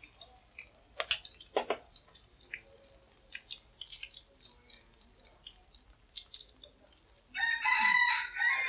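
Patties frying in hot oil, with scattered pops and crackles and two sharp knocks about a second in. Near the end a rooster crows once, the loudest sound here.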